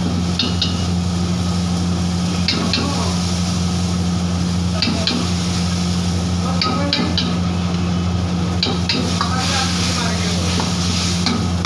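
Chicken in sauce sizzling and bubbling in an iron wok over a gas flame, over a steady low hum. A metal ladle knocks against the wok in quick pairs of sharp clinks every couple of seconds as it stirs.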